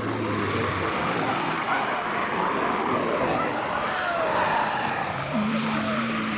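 Zombie sound effect: a dense, continuous growling din with moaning glides running through it, like a horde of zombies.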